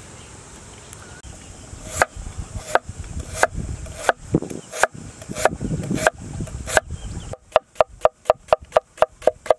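Cleaver slicing lotus root on a wooden cutting board. Single chops knock onto the board about every 0.7 seconds. Near the end they speed up into a quick even run of about five chops a second.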